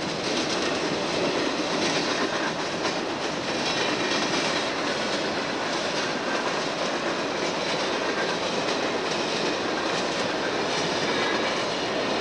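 Conrail freight train passing at speed: the steady noise of its boxcars' steel wheels running on the rails, with faint clacks over the rail joints.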